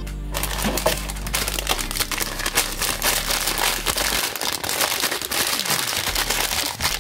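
Packaging being handled: a dense, continuous crinkling and crackling made of many small clicks, starting abruptly just after the start.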